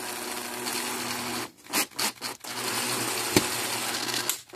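Cordless drill/driver running to drive a Phillips screw into a fence charger's case. It runs steadily, stops about a second and a half in with a few clicks, then runs again and stops shortly before the end.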